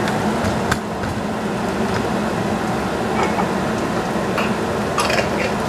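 Caramelized red onion slices frying in oil in a nonstick pan over a gas flame, a steady sizzle with a few light clicks.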